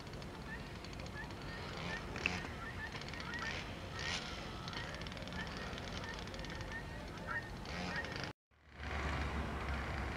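Water birds calling over a steady outdoor hiss: many short, repeated high calls with a few louder calls among them. Near the end the sound cuts out briefly and returns with a low rumble.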